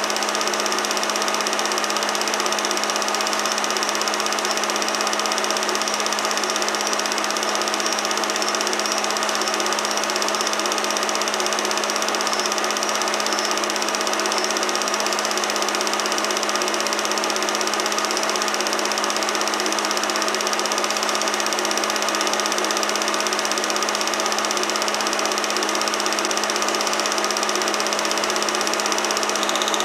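Film projector running steadily, a constant mechanical hum with a fixed drone, as heard on a transfer of old silent home movies.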